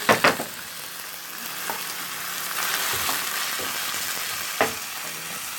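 Raw beef mince sizzling in hot oil in a pot on top of fried onion and shallots, a steady frying hiss. A couple of loud knocks come at the very start and another sharp knock about four and a half seconds in.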